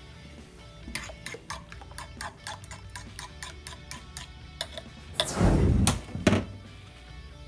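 A metal spoon clinking rapidly against a glass mixing bowl as a thin egg-and-spinach mixture is stirred, about four clinks a second. About five seconds in comes a loud, short rushing noise, then a single clack.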